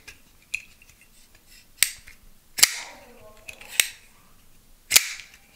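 Titanium liner-lock flipper knife (American Blade Works Model 1) being flipped open and closed, its blade running on ceramic caged bearings: five sharp metallic clicks about a second apart, the first faint, with the 'shaklunk' of the blade snapping out and locking.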